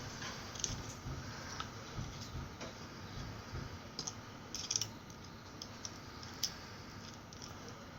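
Scattered light clicks and taps of small parts being handled on a workbench, with a small cluster about four to five seconds in, as power leads are hooked up to a motorcycle digital meter.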